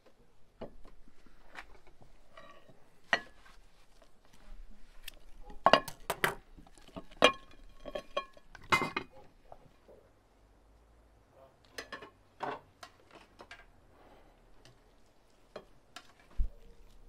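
Ceramic plates, dishes and cutlery clinking and knocking on a table as food is handled and served. The clinks come unevenly, thickest in the middle, with a few that ring on briefly.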